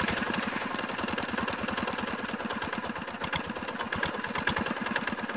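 Single-cylinder diesel engine of a two-wheel hand tractor idling steadily with an even run of rapid firing pulses, running again just after being restarted following repair.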